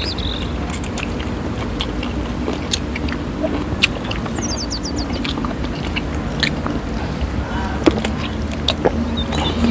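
Close-miked eating sounds of grilled chicken being torn and chewed by hand: scattered wet clicks and lip smacks over a steady low hum.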